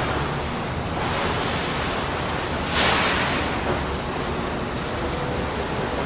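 Automated factory production machinery running with a steady noisy drone, and a short hiss about halfway through.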